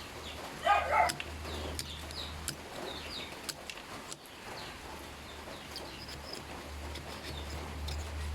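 Birds chirping, with a short, loud animal call about a second in, over a steady low hum and a few sharp clicks.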